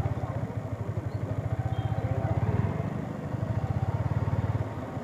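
Yamaha R15's single-cylinder engine running at low revs, a steady rapid beat of firing pulses, easing off briefly about three seconds in and again near the end, as the bike climbs toward the hilltop.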